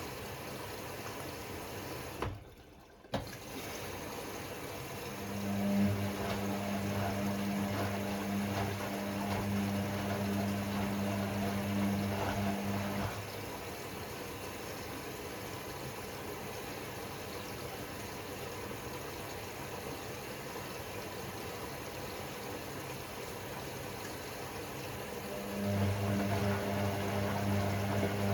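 Hoover AI130 washing machine running its gentle-action wash: a humming run with water in the drum for about eight seconds, a long pause, then the hum starts again near the end.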